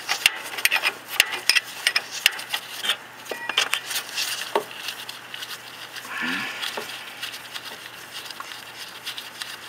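Irregular metallic clicks and rubbing from a wrench and gloved hands working the last mounting nut off a car's starter motor.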